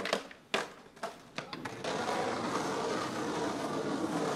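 Skateboard striking the curb and pavement in a few sharp clacks, then its wheels rolling steadily over asphalt from about two seconds in.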